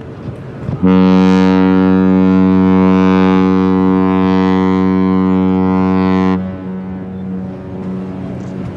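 Ship's horn sounding one long, deep, steady blast of about five and a half seconds, starting about a second in and cutting off sharply.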